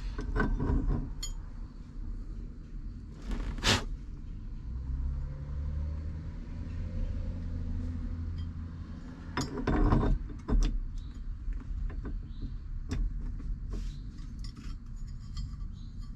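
Small metal parts and hardware clinking and knocking as they are handled, with a few louder knocks and rustles, during a steering wheel fitting.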